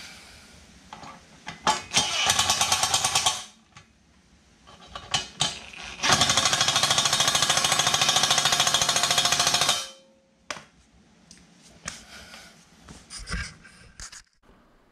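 Cordless impact driver hammering screws into a charcoal canister's mounting bracket in two bursts: a short one about two seconds in, then a longer one of nearly four seconds from about six seconds in. Small clicks and handling knocks come between and after.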